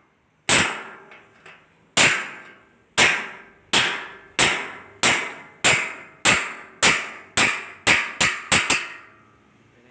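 A hammer striking sheet metal about fourteen times with a metallic ring, the blows coming every half second to a second and quickening near the end.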